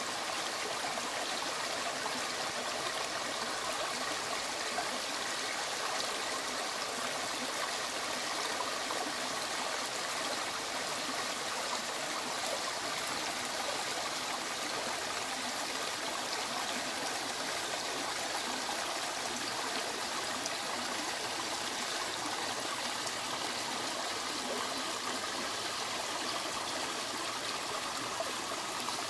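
Shallow, rocky stream running over stones and small drops, a steady, even rush of water.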